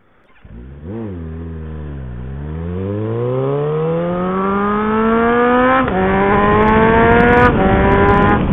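Loud motorcycle engine with its muffler removed, blipped once, then accelerating hard from a standstill. The pitch climbs steadily and drops at two upshifts, about six and seven and a half seconds in.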